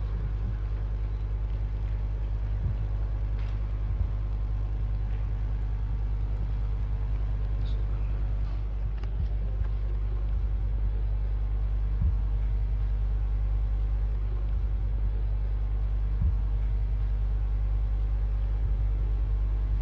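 Steady low hum and rumble of a large hall's room tone heard through the chamber's sound system, with a faint high-pitched whine and a few faint knocks.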